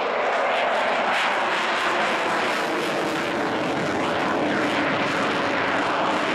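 Eurofighter Typhoon's twin EJ200 turbofan engines heard as a loud, steady jet roar while the fighter manoeuvres overhead, the sound wavering and swishing as the jet turns.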